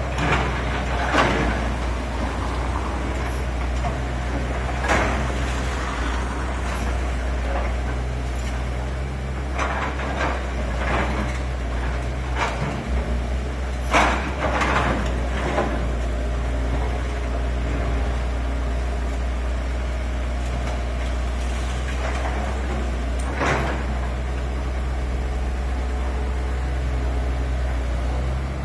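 FH200LC.3 hydraulic excavator's diesel engine running steadily while its bucket breaks and drags masonry rubble, giving intermittent sharp crashes and knocks of stone and concrete; the loudest come about a second in, about a sixth of the way through, and around the middle.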